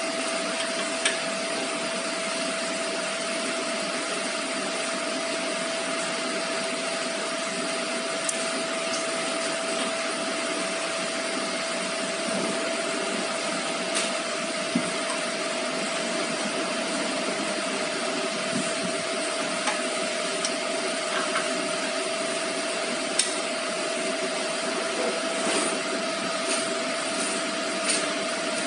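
Steady machine drone with a constant hum, with a few short, light metallic clicks scattered through it as the sanding machine's belt-tensioner fittings are handled.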